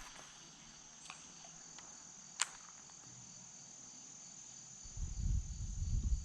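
A steady high-pitched chorus of crickets. A sharp click comes about two and a half seconds in, and a low rumbling noise starts at about five seconds.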